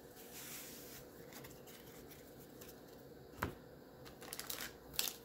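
Quiet handling of trading cards and their cardboard box: soft rubbing, a single sharp tap a little past the middle, and a few light crinkly ticks near the end as a hand reaches into the box for the next foil-wrapped pack.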